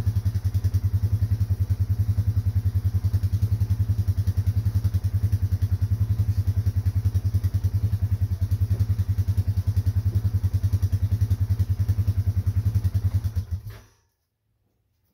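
A vehicle engine idling steadily, with a fast, even exhaust pulse and no revving. It cuts off abruptly near the end.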